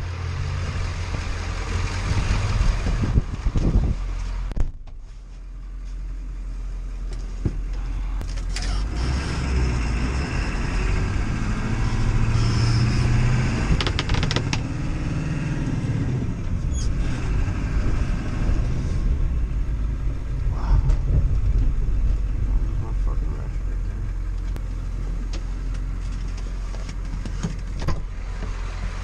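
Ford 7.3L Power Stroke V8 turbo-diesel engine running, a steady low drone, with a brief drop about five seconds in.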